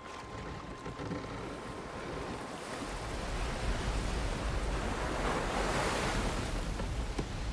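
White water of river rapids rushing, building louder with a deep rumble from about three seconds in and swelling to a peak near the middle.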